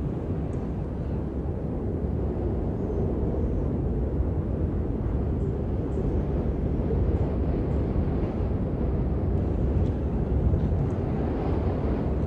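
Blizzard wind blowing across the microphone: a steady, deep rumble with no letup.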